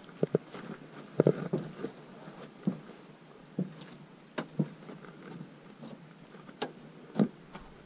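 Footsteps on the dry, weathered plank boards of a wooden porch: irregular knocks and taps of shoes on loose planks, with the loudest about a second in and near the end.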